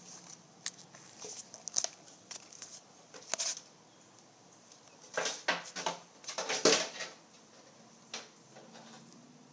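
Scattered soft knocks and rustles close to a phone lying on the floor as a child moves about over it, with a louder cluster of rustling about five to seven seconds in.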